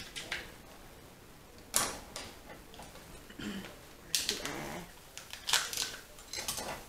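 Crab and lobster shells being cracked and picked apart while eating: sharp clicks and cracks, spaced irregularly, in a few short clusters.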